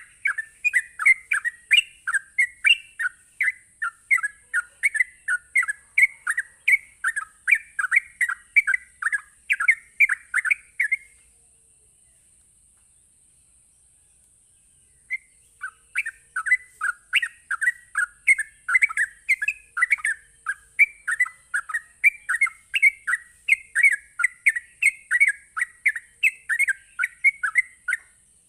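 Sooty-headed bulbul (trucuk) singing in 'ropel' style: a fast, unbroken run of short chirping notes, about four a second. It breaks off after about eleven seconds and resumes some four seconds later.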